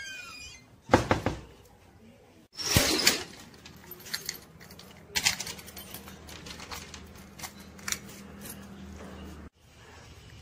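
Metal clanks and rattles of an iron grille gate and its padlock being handled: two loud knocks, then a run of lighter clicks and rattles.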